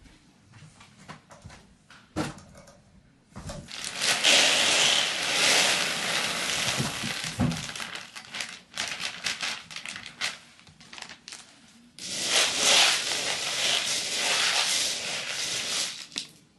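Unicharm DeoToilet cat-litter pellets poured from their bag into the plastic litter tray, a dense pattering rush in two long stretches. Between the pours the bag crinkles and a few pellets rattle.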